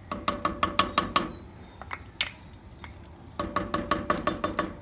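Wooden spoon knocking quickly and repeatedly against the inside of a pressure cooker while spreading ghee, with each knock making the pot ring. The knocks come in two runs of about a second each, one at the start and one near the end.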